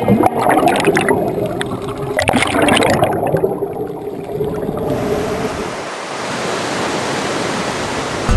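Underwater bubbling from scuba divers' regulators: irregular bursts of exhaled bubbles. About five seconds in it gives way to an even rush of sea waves breaking and foaming over rocks.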